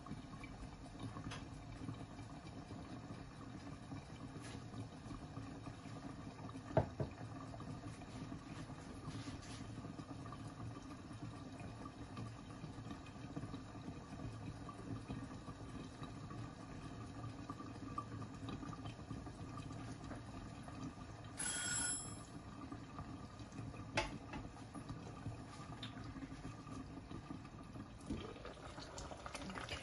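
Covered pot of chicken korma simmering gently on a gas hob, a faint steady bubbling under the glass lid, with a few soft clicks. About twenty-one seconds in, a brief high ringing tone sounds for half a second; near the end the glass lid is handled.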